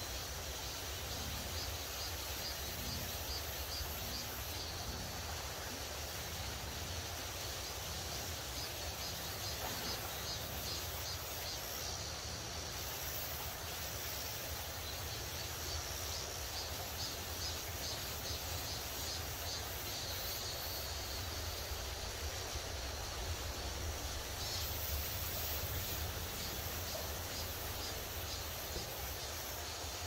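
Shallow mountain stream running over rocks: a steady rush of water with a low rumble under it, and a faint, rapidly repeated high chirping in the background.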